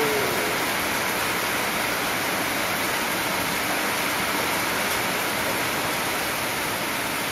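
Heavy rain falling steadily, with runoff pouring off the roof eaves.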